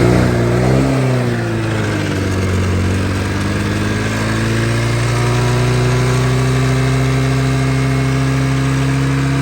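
Honda Metropolitan scooter's small four-stroke single engine running fast with its air intake choked by a paper towel. The revs waver up and down for about the first two seconds, then settle into a steady high idle that creeps slightly higher, as the engine draws fresh fuel through after sitting unused.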